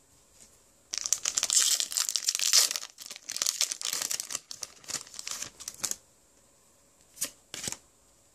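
A Pokémon booster pack's foil wrapper being torn open and crinkled by hand: a dense run of tearing and crinkling for about five seconds, then two short rustles near the end.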